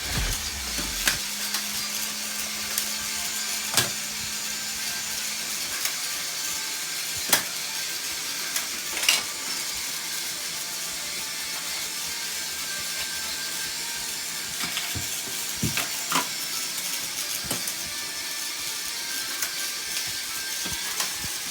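Battery-powered Plarail toy trains running on plastic track, with a steady whirring motor and gear noise. Sharp plastic clicks and knocks come every second or few.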